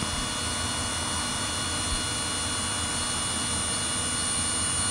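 DJI Avata 2 FPV drone's motors and propellers spinning steadily at idle with no throttle input: an even whirring hiss with faint high whining tones that does not rise or fall.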